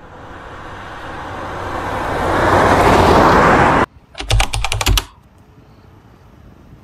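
Editing sound effects: a whoosh that swells louder for about four seconds and cuts off suddenly, then a quick run of keyboard-typing clicks lasting about a second. Faint wind on the microphone follows.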